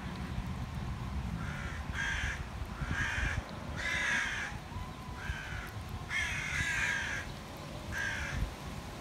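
A crow cawing repeatedly: about seven harsh caws, roughly one a second, with a longer drawn-out caw about two-thirds of the way through.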